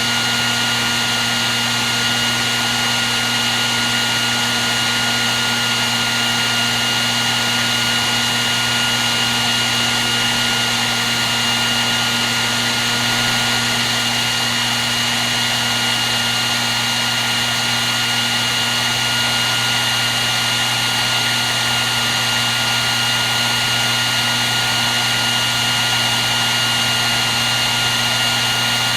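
Hair dryer running steadily without a break: an even rush of blown air with a low motor hum and a thin, steady high whine.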